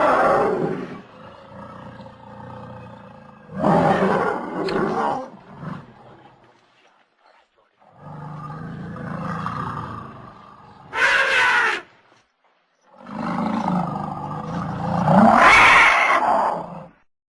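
Platybelodon sound-effect calls: a series of about five deep, roaring animal calls separated by short pauses. A short, higher-pitched call comes about eleven seconds in, and the last call is the longest and loudest.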